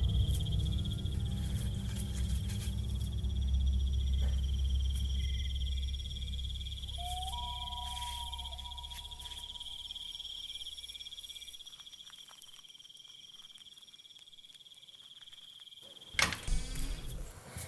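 Night insects, crickets, chirring steadily under a low drone that fades out about two-thirds of the way through. A short rising tone sounds about seven seconds in, and a sudden loud knock and rustle comes near the end.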